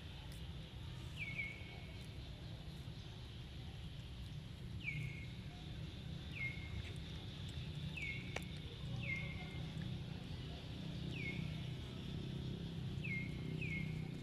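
An animal's short, high chirps, each falling slightly in pitch, about ten of them at irregular intervals. A steady low rumble runs underneath.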